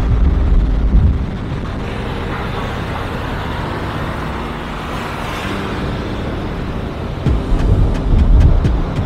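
Background electronic music: deep bass and held chords, with a swelling whoosh in the middle and quick, regular ticks of a beat coming in near the end.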